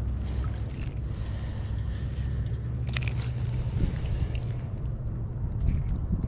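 Steady low rumble of wind buffeting the microphone, with a single sharp click about three seconds in.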